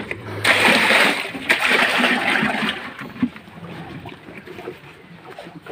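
Cows eating wet feed from a trough: wet slurping and splashing for about two seconds, then quieter.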